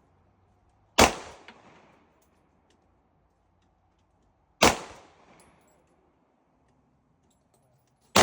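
Three gunshots, about three and a half seconds apart, the last right at the end, each sharp crack trailing off over about a second.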